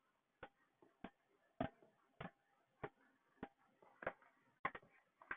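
Near silence with faint, evenly spaced ticks, about one every 0.6 seconds.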